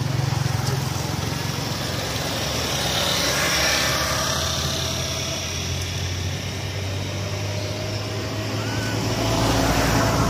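Steady motor-vehicle noise with a low engine hum, swelling about three to four seconds in and again near the end.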